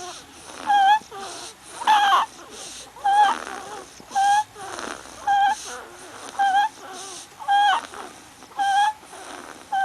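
A sleeping baby making a short, high-pitched squeak with each breath, about once a second, in an even breathing rhythm.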